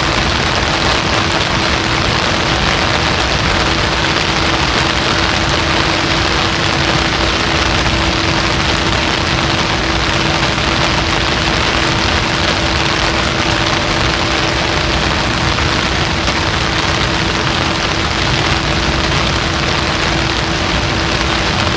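Dense, steady rushing of water, like heavy rain or a fast stream, with no swells, and a faint steady hum underneath.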